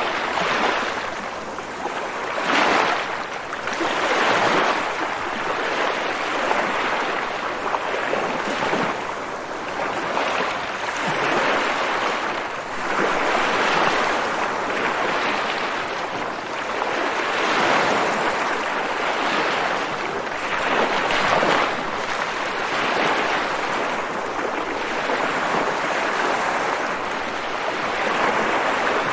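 Rushing water, a continuous hiss that swells and eases every second or two.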